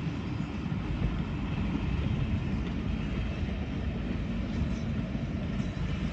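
Passenger coaches of a steam-hauled heritage train rolling past close by: a steady low rumble of wheels on the rails.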